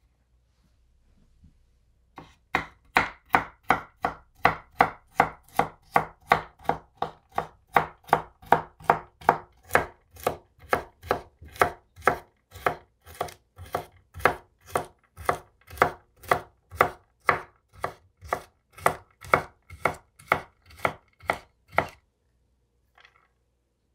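A kitchen knife chopping carrot batons into dice on a wooden cutting board: even, rhythmic knocks of the blade on the board, about two and a half a second, starting about two seconds in and stopping shortly before the end.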